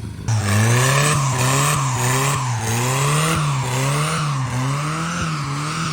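Vehicle engine revving up and down in a regular cycle, about once every 0.7 seconds, with tyre squeal rising and falling along with it.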